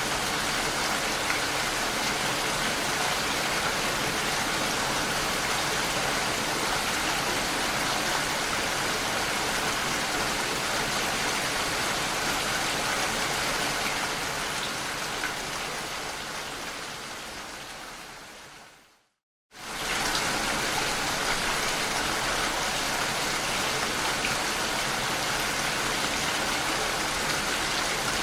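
Steady rain pattering against window glass. About two-thirds of the way through it fades away to a moment of silence, then comes straight back at full strength.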